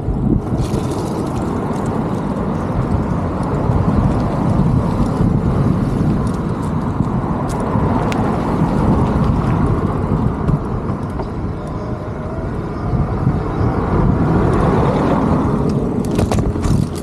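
Steady low rumble of wind on a moving camera's microphone, mixed with street traffic noise.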